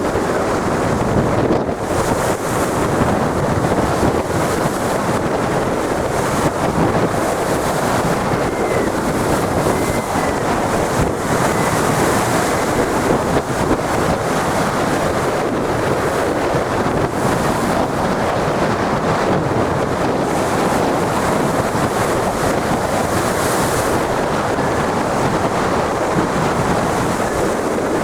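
Big sea waves breaking and surging in a steady, loud rush, with wind blowing across the microphone.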